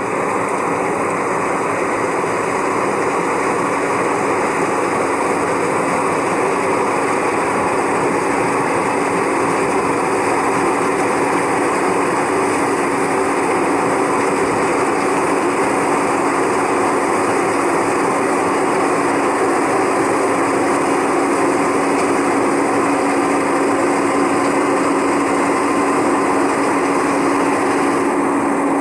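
Rice harvester running steadily: a constant dense mechanical din with a steady hum, no change in engine speed.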